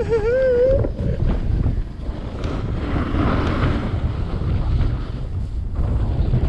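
Wind rushing over the GoPro's microphone during a ski run, with skis scraping and hissing on the snow. A held, wavering tone dies away within the first second.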